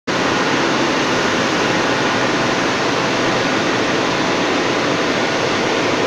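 Blast furnace at work: a steady, loud rushing noise with no distinct tones or knocks, as molten metal pours in a shower of sparks.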